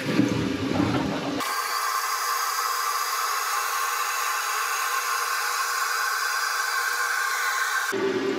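Toto Drake toilet tank flushing and refilling. Water rushes for the first second or so. Then, about a second and a half in, a steady high hissing whir of the refill takes over and cuts off abruptly near the end.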